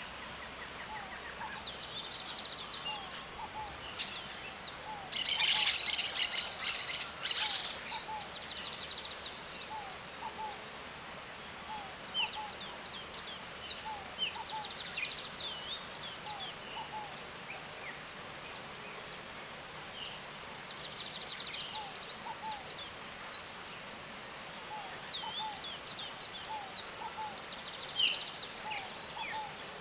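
White-eyed parakeets (maritacas) screeching, loudest in a dense burst of calls about five seconds in, with shorter calls scattered through the rest. A steady high-pitched whine runs underneath, with soft short notes repeating every second or so.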